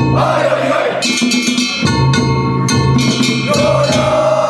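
Kunchi festival float music: drums and a small gong struck in a steady rhythm under held melody notes, with the float's bearers chanting along.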